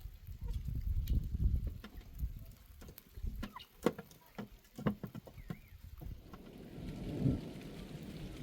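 Scattered sharp clicks and knocks over low rumbling, then about six seconds in an abrupt change to a steady hiss of rain.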